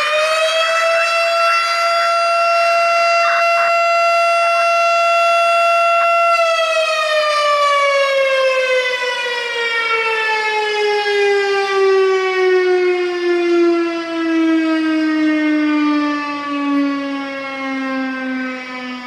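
Federal Signal STH-10 mechanical air raid siren sounding for a fire call. It finishes its wind-up to a steady high wail, holds that pitch for about six seconds, then winds down in a long, slowly falling moan.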